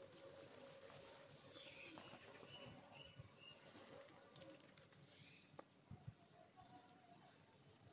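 Faint sounds of a flock of rock pigeons feeding on the ground: scattered soft taps of pecking and feet, with a faint drawn-out low coo in the first couple of seconds.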